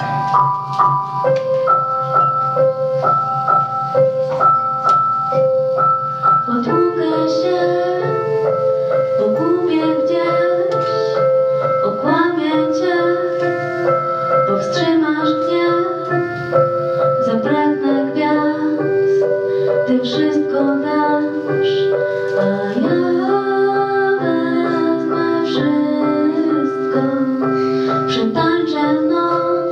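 A female vocalist singing into a microphone over backing music. The music plays alone with repeating high notes for the first six seconds or so, then the voice comes in with sustained, gliding phrases.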